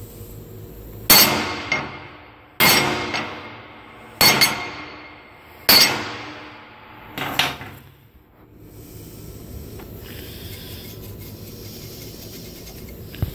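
Hammer striking a lined steel test plate in an impact test: four hard strikes about a second and a half apart, each ringing briefly, then two lighter taps. After that comes a soft, steady rubbing as a hand runs over the plate's coated surface.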